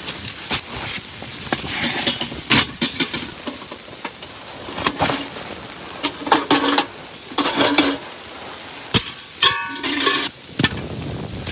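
Metal cookware and utensils clinking, knocking and scraping in an irregular series of sharp knocks, with a brief ringing note about nine and a half seconds in.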